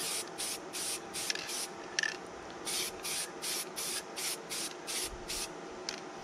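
Aerosol spray-paint can hissing in many short bursts, about two to three a second with a brief pause about two seconds in, misting a first coat of paint onto a foam part.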